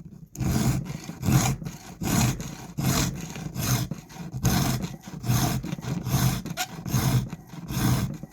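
File rasping back and forth across a chainsaw chain's cutter teeth through a sharpening guide, in about ten steady strokes a little under a second apart, starting about half a second in.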